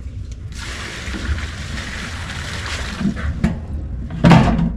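Water pouring for about three seconds, then a louder thump near the end.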